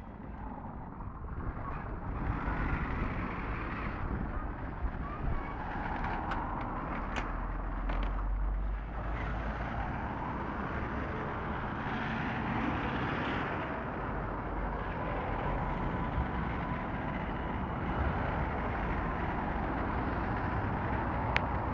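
Street traffic at a tram stop: a city tram running close by on its rails while cars pass on the road, making a steady mix of motor and tyre noise with a heavier low rumble partway through and a few sharp clicks.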